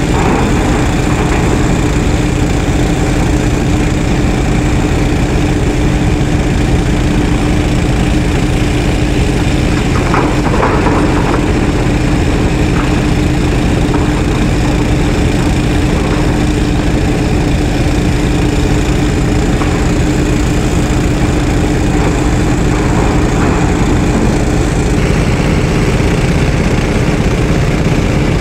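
LiuGong 924E crawler excavator's diesel engine running steadily as the machine works, with a constant hum. A brief clatter about ten seconds in.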